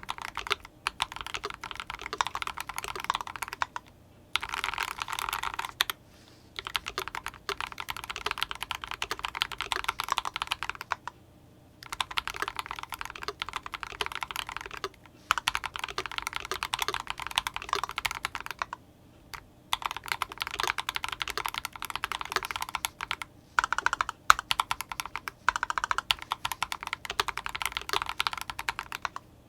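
Fast typing on an IDOBAO ID87 V2 mechanical keyboard with fully lubricated Akko POM Silver linear switches and CMK keycaps: dense runs of keystrokes lasting a few seconds each, broken by brief pauses, with a couple of louder strokes near the end.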